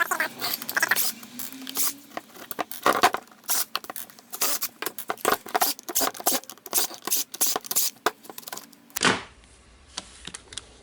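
Clicks, scrapes and rattles of a Makita DDF484 cordless drill being taken apart by hand, its plastic housing and small internal parts handled, stopping about nine seconds in.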